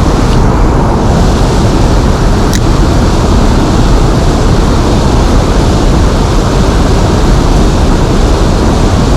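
Steady, loud rushing noise of wind buffeting the microphone beside flowing river water, with one short click about two and a half seconds in.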